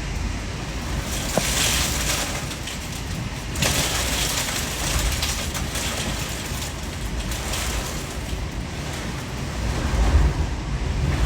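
Storm wind and rain: a steady rushing hiss with wind buffeting the microphone in a low rumble, gusting louder near the end.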